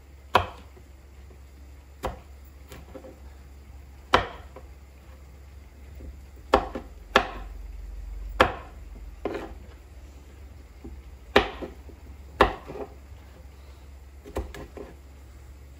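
Kitchen knife dicing eggplant on a wooden cutting board: about a dozen sharp chops, each knocking on the board, spaced irregularly a second or two apart.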